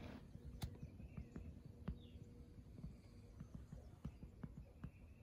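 Near-quiet field ambience: scattered light clicks and knocks of a phone being handled, with a few faint, short, distant bird calls.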